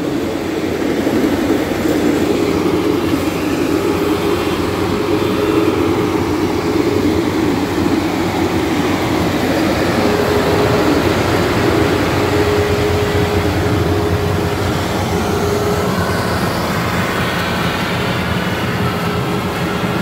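GAM mini combine harvester running while it cuts paddy: a loud, steady mechanical drone from its engine, cutter and threshing works, with a steady whine held through the middle.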